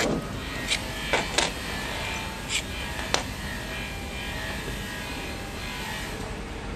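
Clear plastic peristaltic pump head being pulled apart by hand to free its tube: about five sharp plastic clicks and snaps in the first half, over a steady mechanical hum.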